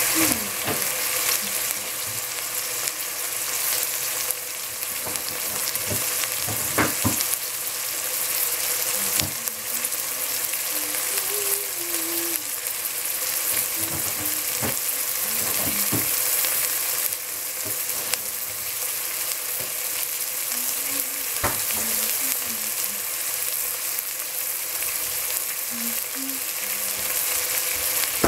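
Chinese greens and minced pork sizzling steadily in a stainless steel pot on the stove, still cooking down to soften. There are a few light clicks, the clearest about seven seconds in and again near twenty-one seconds.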